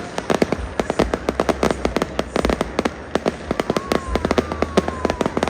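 Fireworks display: rapid sharp bangs and crackles, several a second, with a faint whistle slowly falling in pitch about halfway through.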